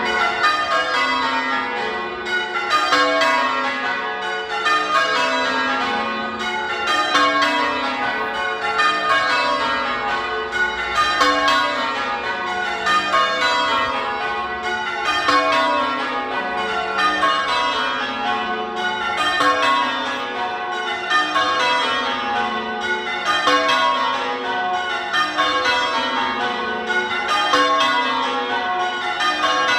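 Church bells rung full circle in English change ringing: the bells strike one after another in a continuous stream, falling from the highest to the lowest bell in rows that repeat about every two seconds.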